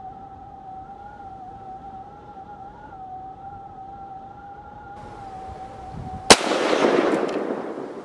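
A held, slightly wavering electronic music tone, then a single sharp crack about six seconds in with a long rushing tail that swells and fades, like a gunshot boom on the soundtrack.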